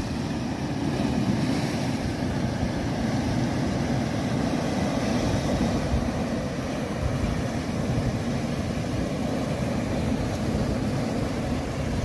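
Sea waves surging and breaking over a rocky shore: a steady rushing with a heavy low rumble.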